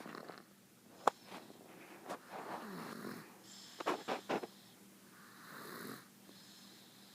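A sleeping baby snoring softly, a few slow, breathy snores, with a few sharp little clicks about one and four seconds in.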